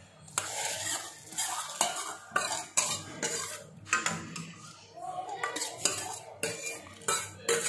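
Metal utensil repeatedly scraping and tapping against a steel pan as hot tempering (oil fried with garlic, onion and curry leaves) is knocked out into a pot of sambar. A light sizzle can be heard as the hot oil meets the liquid.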